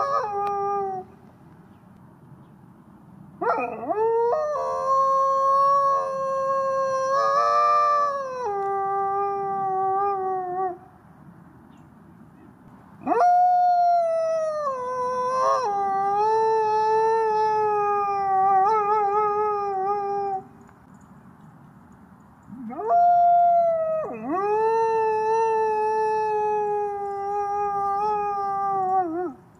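Gray wolf howling: three long howls, each swooping quickly up at the start, then held and sliding slowly down in pitch, with pauses of about two seconds between them. The tail of an earlier howl dies away about a second in.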